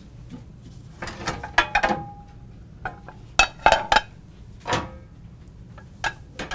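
Metal pots and pans clanking against each other as a skillet is got out: groups of sharp knocks and clatters, some leaving a short ring, coming about a second in, again at three and a half to four seconds, and once more near five seconds.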